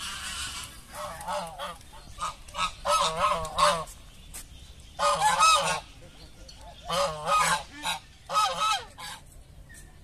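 Domestic greylag-type geese honking in about five bursts of several quick calls each, the loudest bursts a little past the middle.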